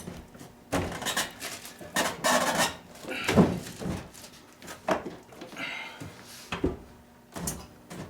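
Irregular knocks, clunks and scraping as an over-the-range microwave oven is shifted and fitted onto its wall mounting bracket, with the loudest clunk about three and a half seconds in.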